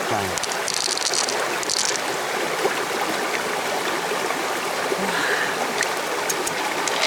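Steady rush of flowing floodwater, like a fast stream, with two short brighter hisses of water about a second in.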